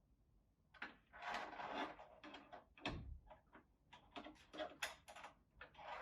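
Hands handling computer-case hardware: a quick run of light clicks and knocks, with a duller knock about three seconds in and stretches of scraping and rustling.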